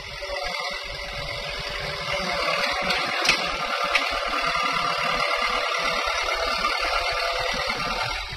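Kobelco SK03 mini excavator's diesel engine running steadily, growing a little louder about two seconds in, with wind rumbling on the microphone.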